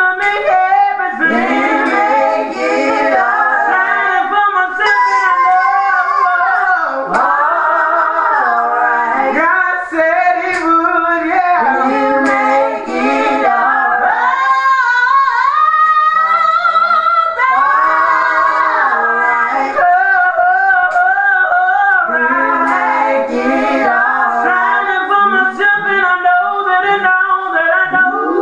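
A woman singing a slow gospel song solo, in long sustained notes with gliding, melismatic runs.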